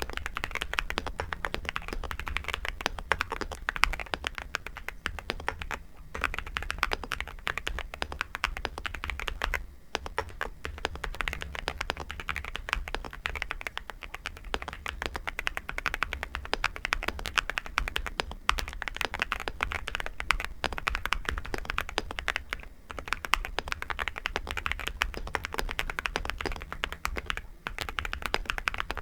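Nuphy Gem 80 mechanical keyboard being typed on quickly and continuously, a dense run of keystroke clicks broken by a few short pauses.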